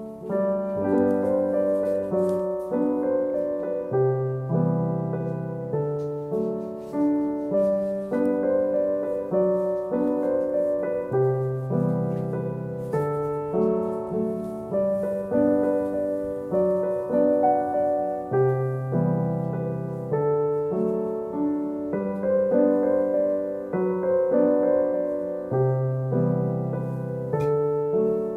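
Gentle solo piano background music with a steady rhythm of repeated notes and chords.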